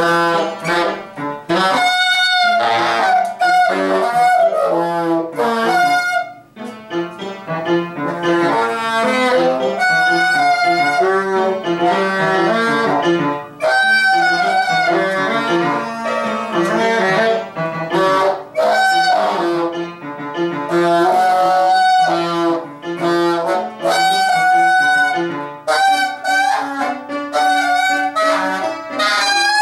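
Saxophone playing phrases of held and short notes, with brief breaks between phrases.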